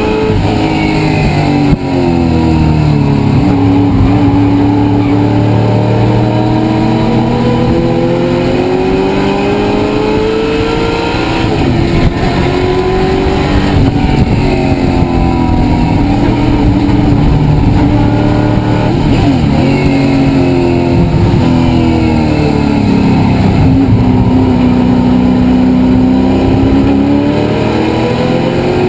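Race car engine heard from inside its cabin, running hard the whole time; its revs climb along the straights and drop several times as it slows and comes through the corners.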